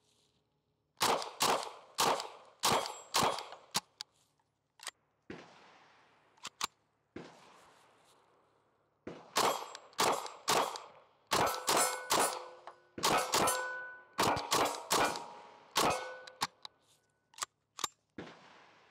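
IWI Uzi Pro 9mm pistol fired semi-automatically in two quick strings of shots, a short one about a second in and a longer one from about halfway. Many of the shots are followed by the ring of hanging steel plates being hit.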